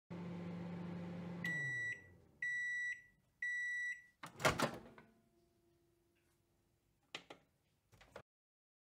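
Microwave oven running with a steady hum that winds down in pitch as it stops, then three high beeps about a second apart signalling the end of the cooking time. These are followed by a loud clunk and, a few seconds later, two fainter clicks.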